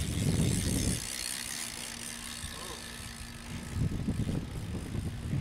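BMX bike rolling along on its tyres, with a low rumble loudest in the first second and again near the end.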